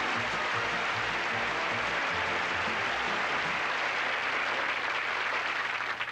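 Studio audience applauding steadily, with band music under it at first; the applause dies away near the end.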